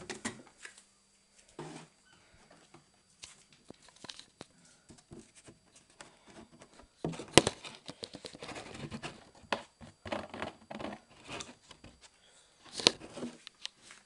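Hands handling plastic laundry items at a front-loading washing machine: scattered rustles and light clicks, with sharp plastic knocks about seven seconds in and again near the end.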